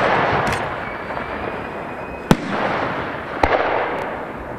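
Aerial firework shells bursting overhead. A sharp bang comes about two seconds in and another a second later, each trailing off into a long, fading rumble.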